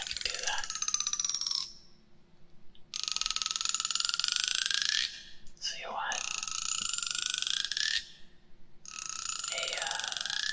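A comb's teeth run along close to a binaural microphone, clicking so fast they blur into a rattle, in four strokes of about two seconds each with short pauses between.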